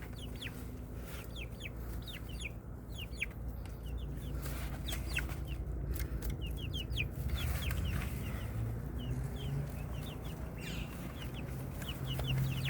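Backyard chickens clucking in short, repeated calls that come in clusters all through, over a low steady hum.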